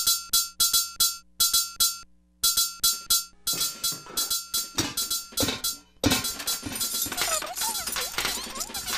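Mechanical kitchen timer's bell ringing in quick, repeated bursts. From about three and a half seconds in, rhythmic clinks and knocks join it and thicken into a dense, music-like percussive clatter about six seconds in.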